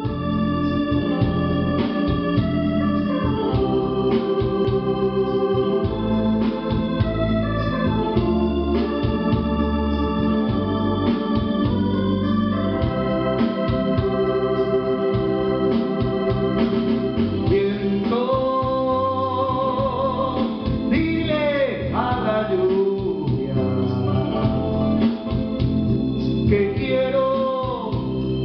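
Music with an organ playing held chords over a steady low beat, like a karaoke backing track. From about two-thirds of the way through, a voice comes in singing over it.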